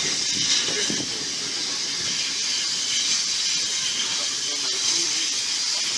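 Steady hiss and low rumble of a moving train, heard from inside a carriage by its window.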